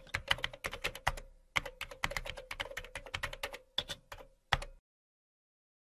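Computer keyboard typing sound effect: a fast, uneven run of key clicks with a short break about a second and a half in, stopping a little before five seconds.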